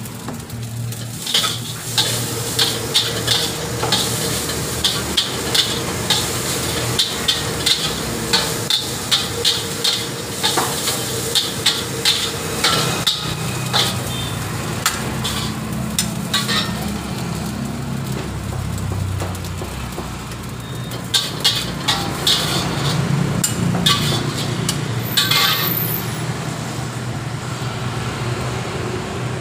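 Metal spatula clanking and scraping against a steel wok as fried rice is stir-fried, in quick strikes about two a second, over a steady sizzle. The strikes pause for a few seconds past the middle, then come in a short last flurry.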